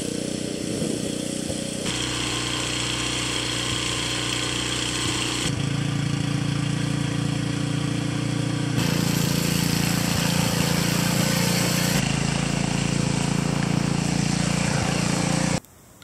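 Small snowblower engine running steadily. Its tone shifts abruptly several times, then cuts off suddenly near the end.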